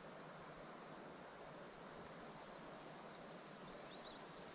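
Quiet outdoor ambience: scattered faint, high-pitched chirps and short whistles from small wildlife over a soft steady hiss, with a few light clicks about three seconds in.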